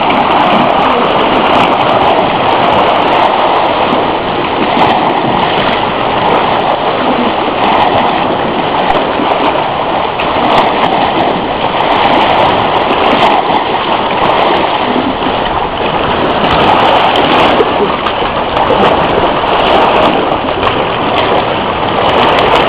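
Choppy sea water splashing and sloshing around a swimmer: a loud, steady rush of water.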